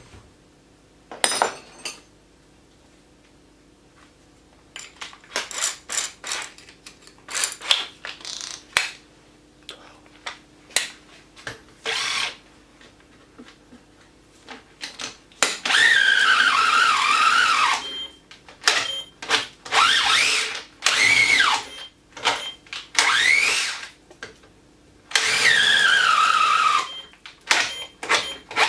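Festool TI 15 cordless drill boring into a timber post with a long auger bit. In the second half it runs in several bursts of one to three seconds, its motor whine sagging and recovering in pitch under load. Before that come scattered clicks and knocks.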